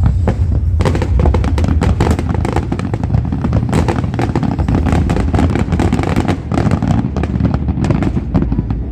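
Fireworks display: a rapid, dense barrage of bangs and crackles that thickens about a second in and thins out near the end.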